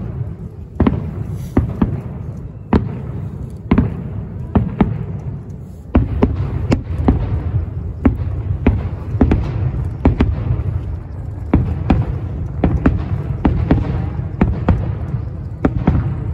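Aerial fireworks shells bursting in a series of sharp bangs with a low rumble of echoing reports between them. The bangs come thicker and the rumble becomes continuous from about six seconds in.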